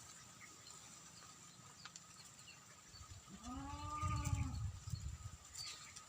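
A single drawn-out animal call, rising and then falling, about three seconds in, over steady faint high-pitched background tones.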